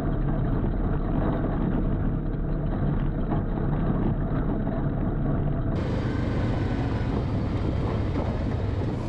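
ATV and side-by-side engines running steadily as the vehicles drive along a dirt trail, with a dense rumble of engine and trail noise. The sound changes abruptly about six seconds in.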